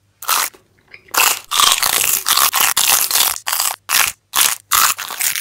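Crunchy bites and chewing of giant blue and green hot Cheeto-style puffs, close to the microphone: one quick crunch, a brief pause, then a run of loud crunches at about two to three a second.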